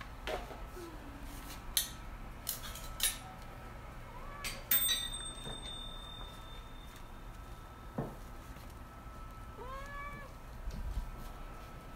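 Domestic cat meowing once, a short call that rises and falls, about ten seconds in. Before it, a scatter of light clicks and taps.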